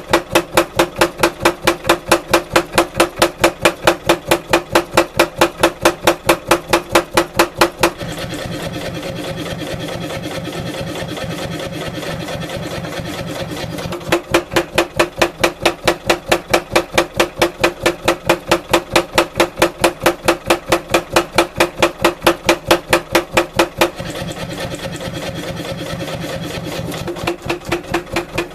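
Mechanical power hammer with a 16 kg head forging a hot wootz steel bar: long runs of fast, evenly spaced blows. The blows stop twice, for about six seconds a third of the way in and for about three seconds near the end, leaving only the machine running steadily.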